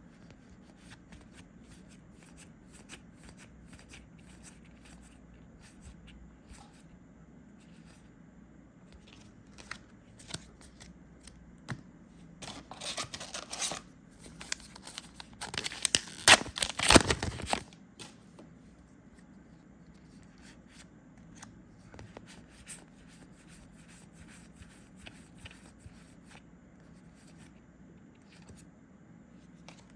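Trading cards being handled and flipped through, with soft scattered clicks. About halfway through, a few seconds of louder crinkling and tearing as a foil booster pack wrapper is ripped open.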